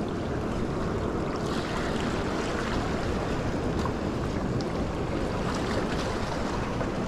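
Small waves washing against shoreline rocks, with wind on the microphone: a steady rushing noise with no distinct events.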